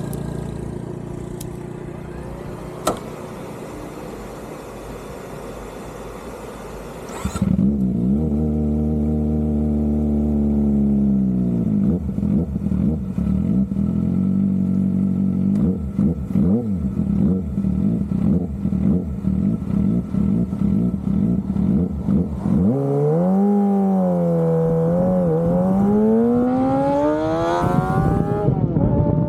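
Kawasaki Ninja ZX-25R's 250 cc inline-four engine running. It is fairly quiet for the first seven seconds, then suddenly much louder. It settles to a steady idle, then is revved up and down several times, with a rising rev near the end.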